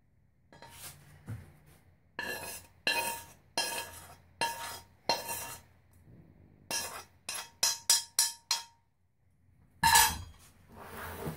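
A metal kitchen spoon scraping powdered aluminium out of a metal frying pan, five strokes each ringing briefly, then a quick run of sharp taps of the spoon against the pan. About ten seconds in, a louder clatter as the pan and spoon are set down on the bench.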